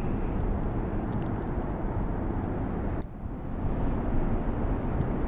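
Wind buffeting the action camera's microphone: a steady low rumble and hiss that dips briefly about three seconds in.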